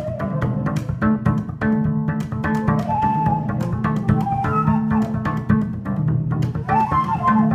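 Improvised duo of amplified cello and wooden transverse flute: the cello plays repeated low notes in a busy rhythm with sharp clicking attacks, and the flute adds short high phrases about three seconds in and again near the end.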